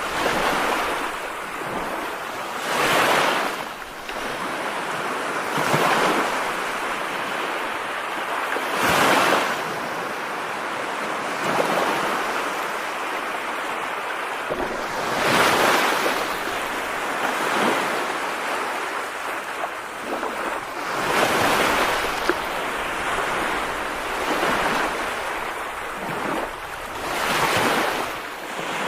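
Steady rushing water noise that swells into a louder surge every few seconds, about seven times.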